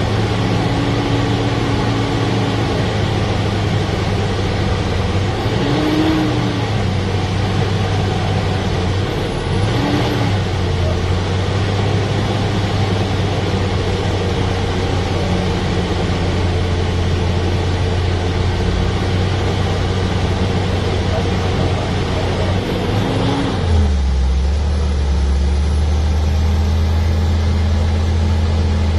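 Heavy vehicle engines running steadily, the pitch rising briefly a few times. About 24 seconds in, the sound switches abruptly to a deeper, steady engine drone.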